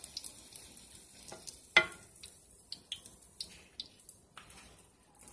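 Hot cooking oil crackling and popping faintly in a frying pan, its burner just switched off. About two seconds in, one sharp metal clink of the slotted skimmer spoon against the pan.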